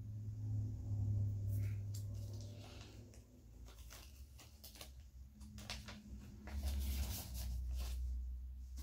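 A 7-inch vinyl single and its paper sleeve being handled, with short rustles and light clicks over a low rumble that swells twice.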